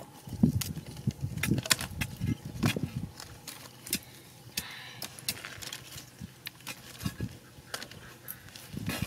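Dry sticks and twigs clattering as they are picked up and stacked on gravel, a string of irregular sharp clicks and knocks.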